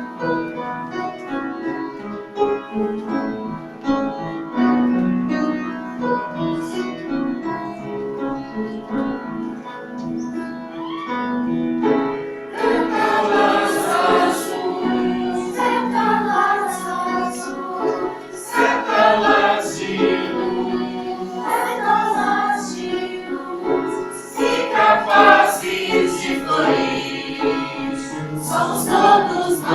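Choir performance with instrumental accompaniment: an instrumental passage for about the first twelve seconds, then the choir comes in singing over it.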